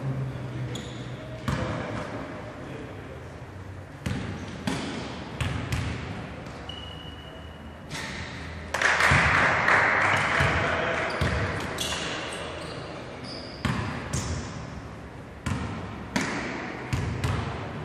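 Basketball bouncing on a hardwood gym floor, a few echoing bounces at a time as the shooter dribbles before free throws, with voices in the hall. About nine seconds in, a louder burst of crowd noise rises and fades over a couple of seconds.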